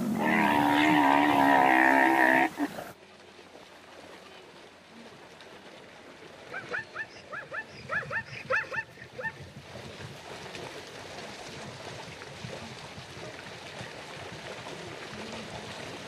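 A loud, wavering animal bellow lasts about two and a half seconds and stops abruptly. A few seconds later comes a run of about a dozen short rising yelps from a spotted hyena, then a faint outdoor background.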